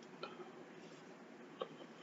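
Quiet room tone with two soft clicks, about a second and a half apart.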